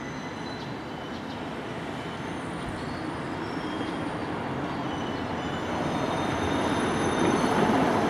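Former JNR 183 series electric train running slowly into a station out of service, its rolling and running noise growing steadily louder as it approaches.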